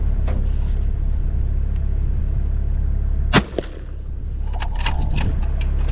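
A vehicle engine runs steadily at idle. About three and a half seconds in comes a single sharp rifle shot. Near the end there are a few light metallic clicks.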